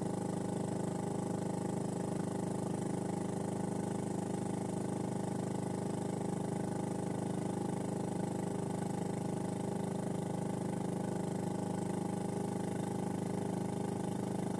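Small outboard motor on an inflatable boat, running steadily at a constant speed as the boat moves along.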